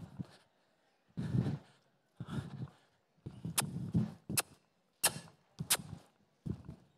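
Young horse loping under saddle around an arena-dirt round pen: its strides are heard as a rhythm of muffled thuds about every two-thirds of a second, with sharp clicks on the beat from about halfway in.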